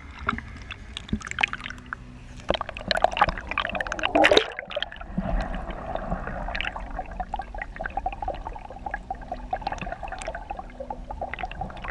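Water splashing around the camera, surging about four seconds in as it goes under. After that the sound turns to muffled underwater gurgling and bubbling.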